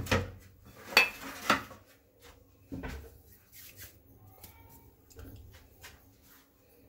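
Metal baking tray being set down and handled on a wooden countertop: a few sharp clattering knocks in the first three seconds, then only faint small handling clicks.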